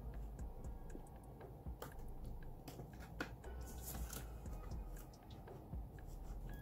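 Soft rustling and crinkling of a clear plastic binder envelope and polymer banknotes being handled and pressed shut, with scattered small clicks and taps.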